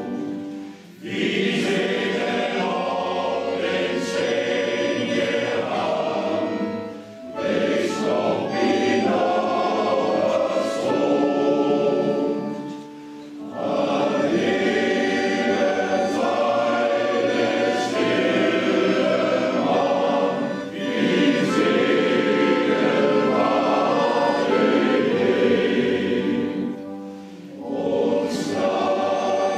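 Male seamen's choir singing a song in phrases of about six seconds, with a short breath-pause between phrases, accompanied by a piano accordion.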